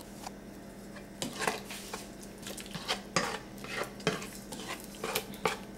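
Plastic slotted spoon stirring cooked liver in broth in a pot, with irregular scrapes and knocks against the pot.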